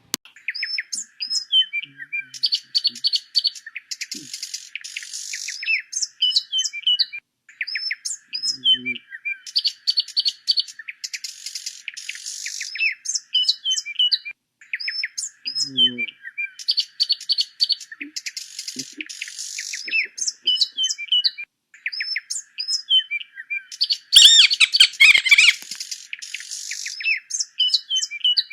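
Mice squeaking in rapid runs of short, high chirps, with a louder, denser burst about 24 seconds in.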